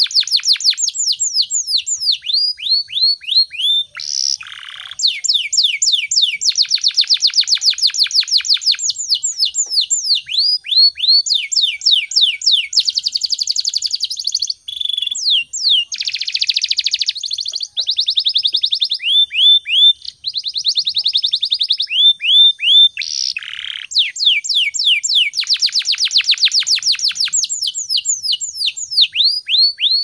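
Domestic canary in full song, running without a break: long, rapid trills of repeated falling whistled notes, some fast enough to blur into rolls and some slower at a few notes a second, with a few short harsh buzzy notes in between.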